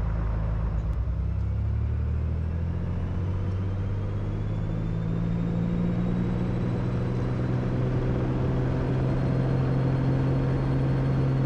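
Cessna Turbo Centurion's turbocharged six-cylinder engine and propeller coming up to takeoff power for the takeoff roll. The steady drone rises slightly in pitch over the first few seconds, then holds.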